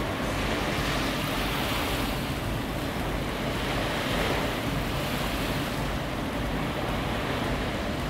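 Small waves breaking and washing up on a sandy beach, a steady rushing surf.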